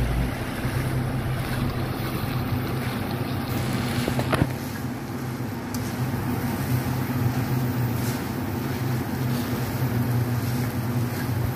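Cooked rice being stirred and turned with a plastic slotted spatula in a stone-coated nonstick wok, with soft scraping and a couple of light knocks about four seconds in, over a steady low hum.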